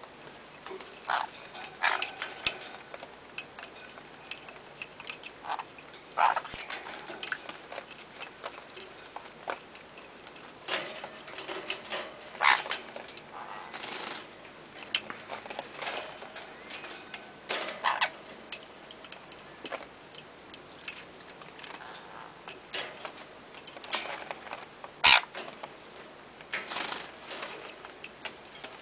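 Sun conures bathing: irregular splashes, flutters and sharp ticks every second or two from the birds flapping and shaking in water, with one sharp click loudest near the end.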